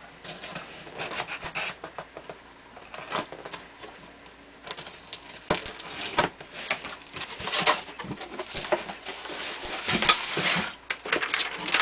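Cardboard shipping box being opened by hand: fingers scratching and picking at the taped seam, flaps rubbing as they are folded back, and a boxed item sliding out against the cardboard near the end, the loudest part.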